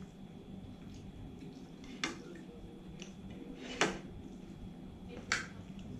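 A spoon clinking against bowls and a plate while eating: three short clinks, the second the loudest, over a steady low hum.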